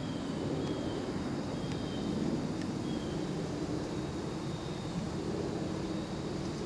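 Steady low drone of distant engine noise, with a few faint short high chirps scattered through it.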